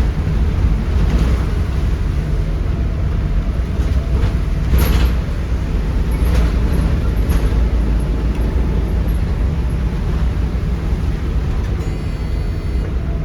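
Volvo B7RLE bus with its 7.3-litre Volvo D7C diesel engine running, a steady low rumble with rattles, and a sharp knock about five seconds in.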